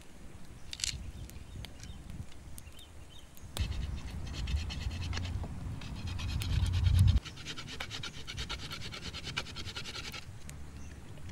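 A small hatchet blade scraping the bark off a green wooden stick in quick repeated strokes, a fast dry scratching. It starts about three and a half seconds in and stops about ten seconds in. A low rumble runs under the first half of it and cuts off suddenly about seven seconds in.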